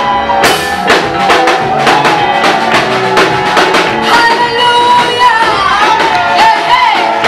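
Gospel praise music: a band with drum kit keeps a steady beat under a singing voice that holds and bends long notes.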